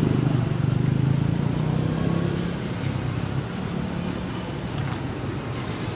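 A motor vehicle's engine running with a steady low hum that fades away over the first two or three seconds, leaving an even background noise.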